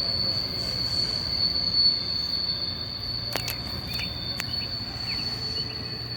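Intermodal freight train rolling past: a steady low rumble with a continuous high-pitched tone over it, and two sharp clicks about a second apart midway.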